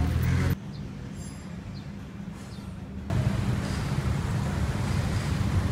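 City street traffic: vehicle engines running with a steady low rumble. The sound drops suddenly about half a second in and comes back up about three seconds in.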